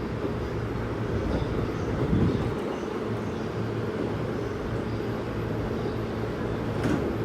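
Electric train running at a station platform: a steady rumble with a low hum, a short louder thump about two seconds in and a sharp click near the end.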